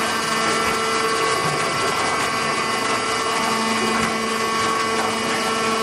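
Horizontal hydraulic plastic baler running: a loud, steady machine noise with a constant hum.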